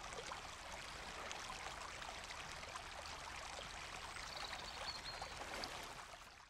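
Shallow stream rushing over rocks: a steady rush of water that fades out at the end.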